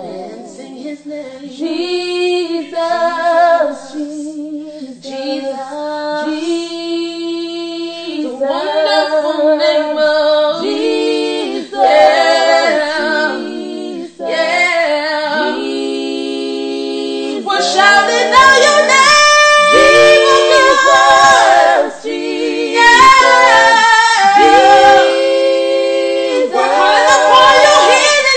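Background vocal music: a song sung by women's voices in harmony, with little or no instrumental backing. It grows fuller and louder about two-thirds of the way in.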